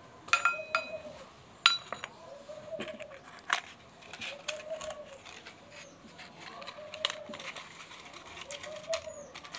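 A small glass bottle set down on a stone floor, clinking twice with a short ring in the first two seconds. Behind it, an animal makes faint, short calls about every second and a half.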